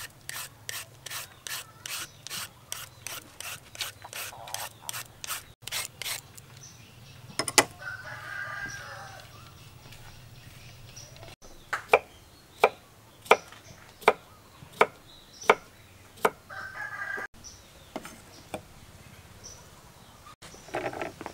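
Julienne peeler scraping thin strands off a firm green fruit in quick, even strokes, about two a second. Later comes a run of sharp knocks about two-thirds of a second apart, a kitchen knife cutting through onto a wooden chopping board.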